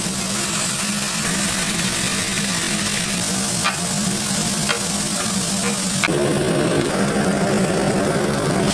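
Beef burger patties sizzling on a flat-top griddle: a steady frying hiss over a low hum, with a few small pops. The sizzle changes in tone about six seconds in.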